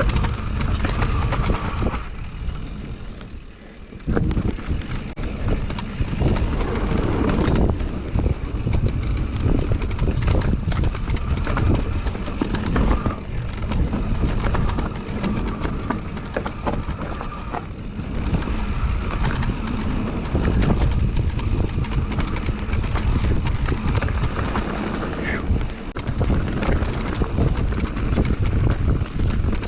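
Mountain bike descending a dirt trail: tyres rumbling over the ground, with constant clattering and knocking from the bike and wind on the microphone. It goes briefly quieter a couple of seconds in.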